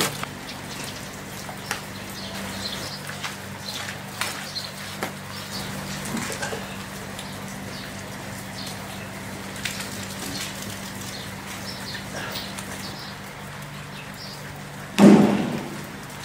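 Faint bird chirps and scattered small knocks over a steady low hum, with one louder thud near the end.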